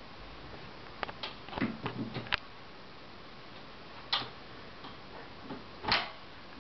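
Light footsteps and a door being handled: a quick run of soft knocks and clicks, then a single sharper click about four seconds in and another near the end.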